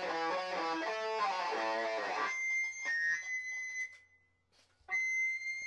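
Music: electric guitar playing a quick run of stepped notes over a high steady tone, breaking off about two seconds in. The high tone carries on alone with a few scattered clicks, drops out for about a second, then returns near the end.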